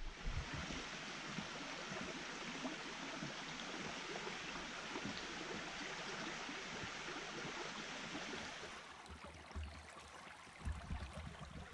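Brook water rushing steadily over rocks, cutting off abruptly about three-quarters of the way through, after which low bumps and rumbles take over near the end.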